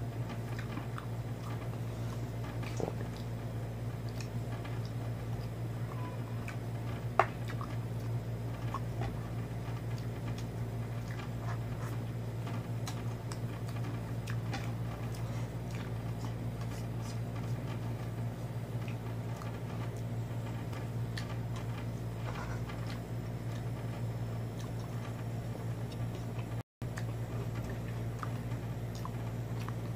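Someone eating with his hands from a plate: faint chewing and small clicks and taps over a steady low hum, with one sharper click about seven seconds in.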